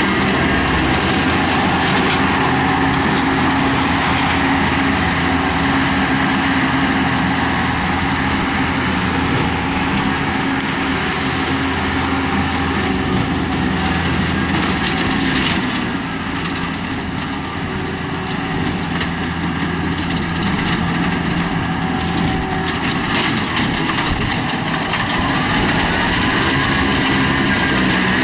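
Skid steer loader's engine running steadily under load while a Bobcat 90-inch finish mower attachment spins its blades and cuts grass. The sound eases slightly for a few seconds a little past the middle.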